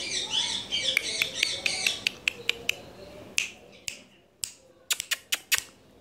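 Indian ringneck parakeet giving a soft, wavering chatter for about two seconds, mixed with rapid sharp clicks. This is followed by a scattered series of single sharp clicks.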